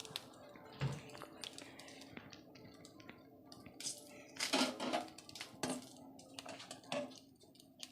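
Scattered knocks and clinks of kitchen utensils against a pot, with a dull thump about a second in, as ginger is crushed and added to a boiling herbal decoction.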